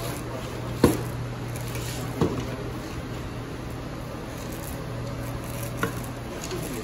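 A steady low hum, with three sharp knocks: one just under a second in, the next about a second and a half later, and a softer one near the end.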